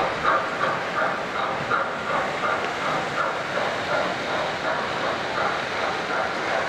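Three-rail O-gauge model train running on its track: a steady rumble with a repeating clicking rhythm about three times a second.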